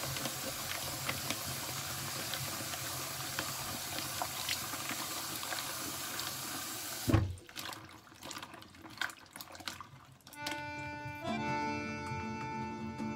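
Kitchen tap running into a plastic bowl while okra pods are rinsed and rubbed by hand. The water stops suddenly with a thump about seven seconds in. Background music with held notes follows near the end.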